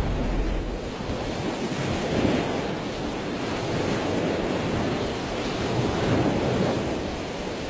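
Sea waves washing with wind, an even rushing that rises and falls in slow surges. A deep low rumble fades out at the very start.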